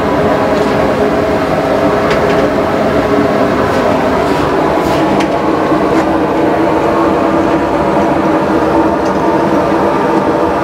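A loud, steady mechanical drone holding several fixed pitches, with a few light knocks as a wooden stick scrapes solid cooking fat out of a plastic jerrycan.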